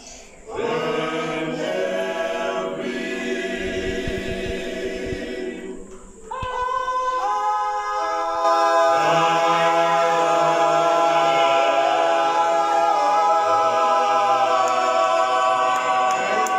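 Male a cappella vocal group singing a gospel song in close harmony, holding long chords. After a short break about six seconds in, they come back louder on a long held chord.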